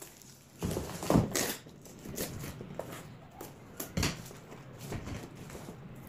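A cardboard shipping box and its plastic tape wrap being handled and torn open by hand, giving rustling and crinkling with sharper rips and knocks about a second in and again at four seconds.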